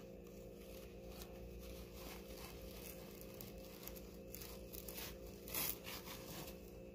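Faint rustling of a cloth shipping bag and the shredded paper inside it as a hand rummages within, with one louder rustle about five and a half seconds in.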